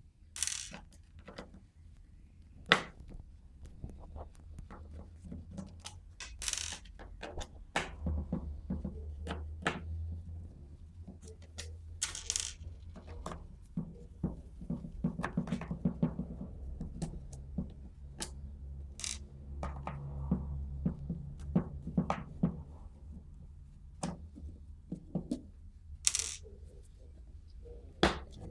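Plastic cover being worked off a Renault electronic parking brake unit: irregular clicks, knocks and taps of tools and plastic housing, with a few short scraping snaps.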